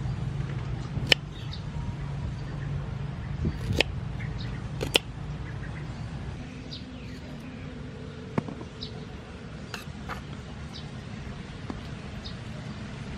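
Kitchen knife cutting broccoli into florets, with a handful of sharp, scattered knocks of the blade on a wooden cutting board. Small birds chirp faintly throughout.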